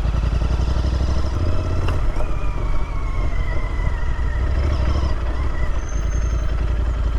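Royal Enfield Interceptor 650's parallel-twin engine running steadily as the motorcycle rides along a dirt trail.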